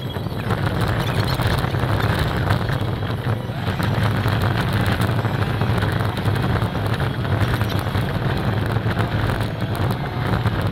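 Off-road vehicle engine running steadily under way, a constant low drone, with wind noise on the microphone.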